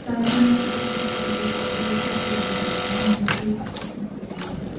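Brother HE-800A electronic buttonhole sewing machine stitching at speed for about three seconds, then stopping with a click, a short pause and a second click before it starts running again near the end. It is cycling through its stitching without hanging on error 62.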